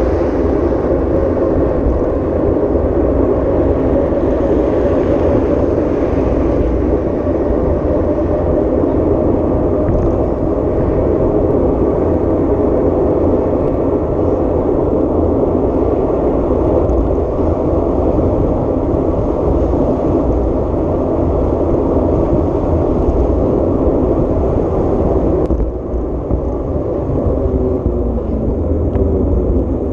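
Vehicle driving off-road: steady engine and tyre rumble with road noise, a little quieter for the last few seconds.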